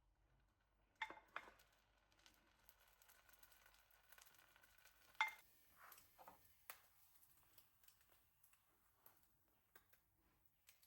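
Faint handling of kitchenware: two light clinks with a short ring about a second in and a louder one a little past five seconds, with scattered soft taps and rustles between.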